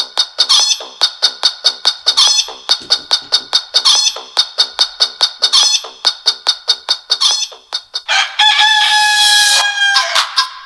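Samsung Galaxy Young GT-S6310N's stock alarm tone: rapid chicken clucking, about five clucks a second, then a rooster crow near the end.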